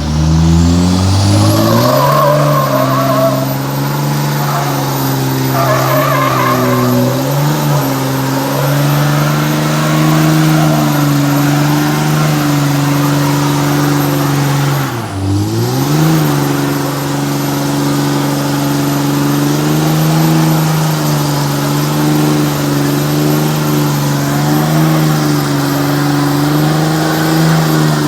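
Diesel engine revving up and held at high, steady revs during a burnout, with a loud hiss of spinning tyres over it. The revs dip sharply about halfway through and climb straight back.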